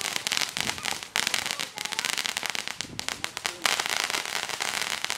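Two ground fountain fireworks spraying sparks, with a rapid crackling over a steady hiss; the crackle thins into a more even hiss about three and a half seconds in.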